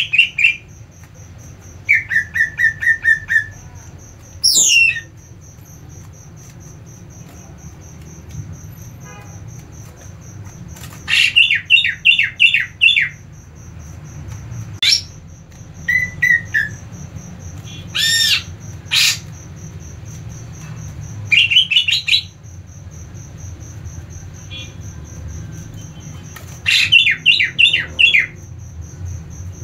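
Caged male green leafbird (cucak ijo) calling in agitated 'ngentrok' bursts: short runs of four to seven fast repeated notes, broken by single sharp whistled sweeps, with gaps of a few seconds between. This fired-up calling is the kind used to provoke other leafbirds. A thin steady high whine runs underneath.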